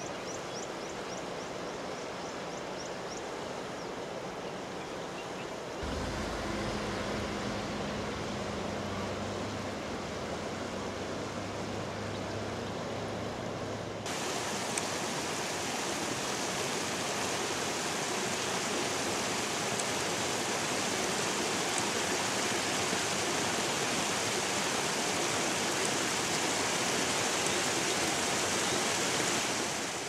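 River water flowing over a shallow bed, a steady rushing hiss that gets louder a few seconds in and again about halfway through.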